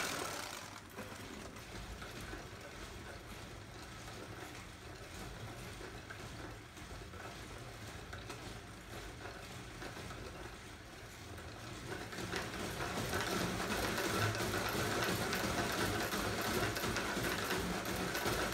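Homemade curved wooden-slat treadmill running: the wooden slats roll over rows of small bearings along the frame in a continuous dense rattle. It grows louder about twelve seconds in, with bare feet driving the belt.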